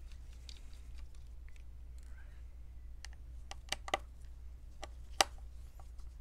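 Light clicks and ticks of a small screwdriver on the screws that hold the LCD panel in a Dell Latitude E7470 laptop's lid, with scattered light clicks and a few sharper ticks; the sharpest comes about five seconds in.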